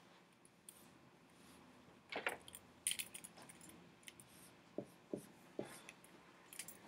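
Faint, scattered rubs and small clicks of a dry-erase marker and eraser working on a whiteboard.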